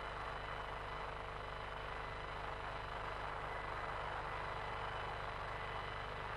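Steady background hiss with a faint, even electrical hum: the room tone of the studio.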